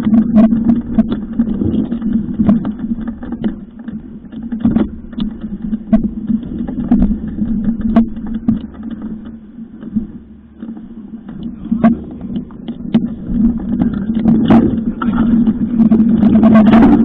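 Mountain bike rattling and knocking over a rough dirt trail, with many short clicks and bumps over a steady low hum, heard through a bike-mounted action camera.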